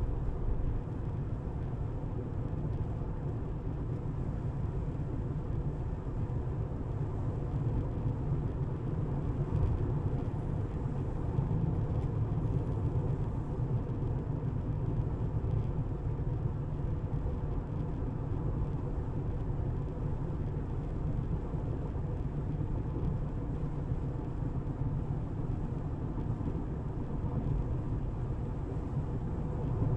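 Steady low rumble of road and tyre noise from a Tesla electric car driving.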